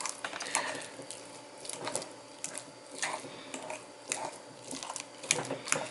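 A fork mashing ripe avocado in a glass bowl: irregular clicks and scrapes of the metal tines against the glass, about two a second.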